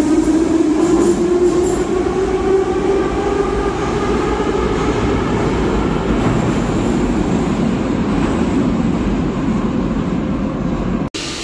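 Subway train pulling out of the station: the motor whine rises slowly in pitch over the first few seconds, then gives way to a steady rumble as the train runs into the tunnel. The sound cuts off abruptly near the end.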